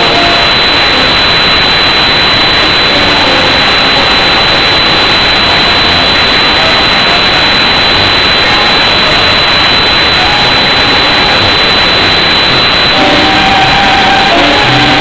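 A loud, steady roar of distorted noise that almost buries the tango music, with faint notes showing through near the start and again near the end. The camera's recording is overloaded.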